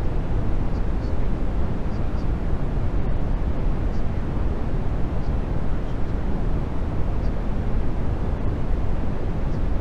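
Steady, unchanging rumbling noise, heaviest in the low end: the masking sound bed of a subliminal track. A few faint, short high chirps come through now and then.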